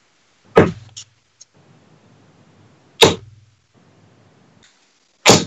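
Three steel-tip darts striking a bristle dartboard one after another, about two and a half seconds apart, each a sharp thud.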